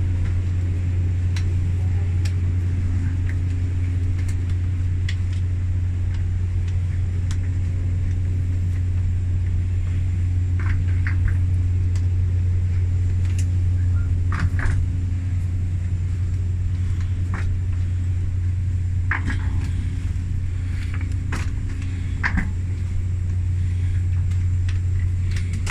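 Steady low machine drone filling a jet bridge, loud and unchanging, with scattered light clicks and knocks from people walking through.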